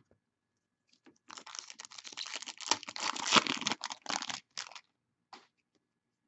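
Foil trading-card pack wrapper being torn open and crinkled by hand, a dense crackling for about three and a half seconds. A few light clicks come just before and after it.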